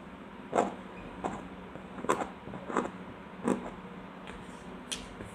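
A few light taps and knocks, about six at uneven intervals, over a steady low hum.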